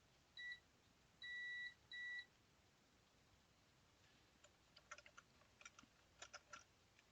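Multimeter continuity beeper sounding three short, steady beeps in the first two seconds as the probes touch a capacitor on the TV main board, the beep signalling a short across the cap. Faint scattered clicks follow a few seconds later.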